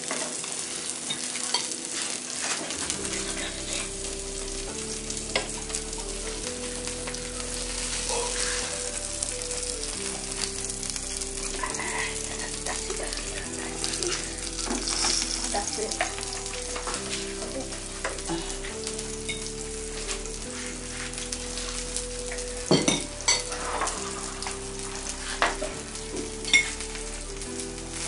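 Food sizzling steadily in a frying pan, with a few sharp clicks near the end. A soft melody with a bass line plays underneath from about three seconds in.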